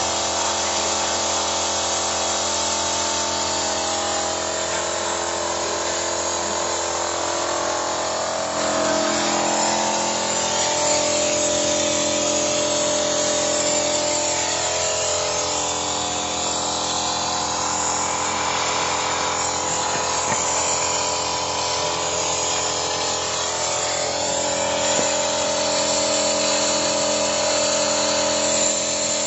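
Toyota Innova engine running steadily with a constant whine while carbon cleaner is fed into its intake. The pitch wavers slightly about ten seconds in.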